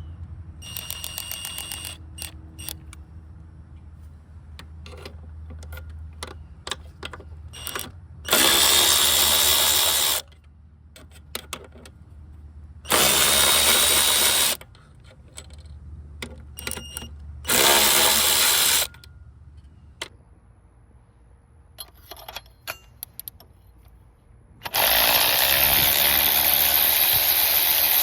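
Fullyea cordless 3/8-inch electric ratchet run in three short bursts of a second or two each, with small clicks between. A loud, steady run-like noise starts near the end and continues.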